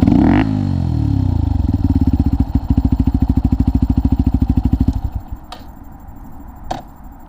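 Motorcycle engine running through a Lextek OP1 full exhaust system: a quick blip of the throttle at the start, then a steady, pulsing idle that cuts off suddenly about five seconds in as the engine is switched off. Two short clicks follow.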